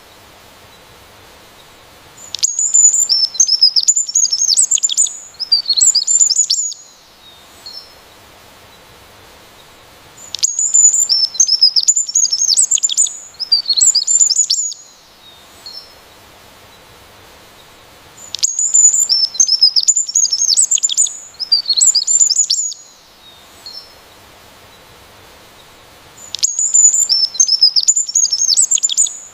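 A songbird singing a fast, high-pitched song of rapid chirping notes. The same phrase comes four times, each lasting about four seconds, about every eight seconds.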